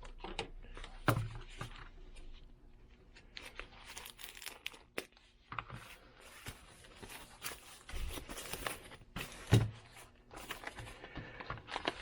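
Packaging being handled and opened by hand: irregular crinkling and tearing, with a couple of dull knocks about a second in and near the end.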